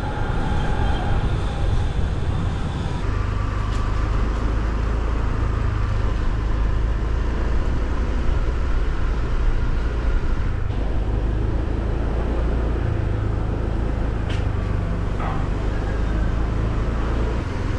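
Motorcycle riding at low speed: a steady low rumble of engine and road noise heard from the rider's position.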